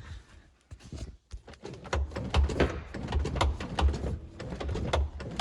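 Footsteps: low thumps about twice a second, mixed with a clatter of sharp clicks and knocks, starting about two seconds in after a quieter opening.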